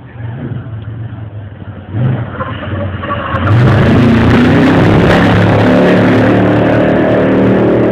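Off-road race vehicle engine revving hard and accelerating away from a race start. It grows much louder about three and a half seconds in and holds a steady high-revving note.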